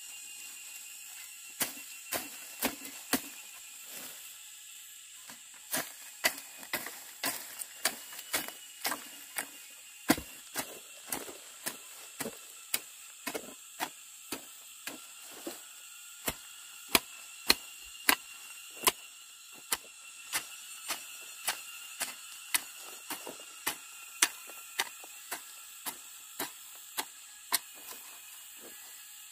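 Many sharp knocks or snaps at an uneven pace, roughly one to two a second, over a steady high-pitched hum.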